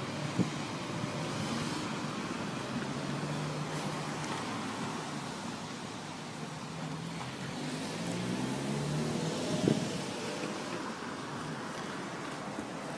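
Street traffic: cars and vans drive past with a low engine hum that swells twice as vehicles go by. There is a short thump near the start and a louder one about ten seconds in.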